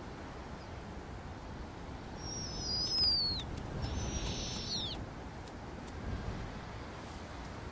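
Snowy owl giving two high, thin squealing calls, each about a second long and dropping in pitch at the end, a little after two seconds in, over a steady low background rumble.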